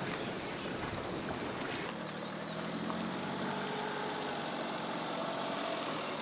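An engine running steadily under a loud, even rushing noise, with a low hum growing clearer about two seconds in.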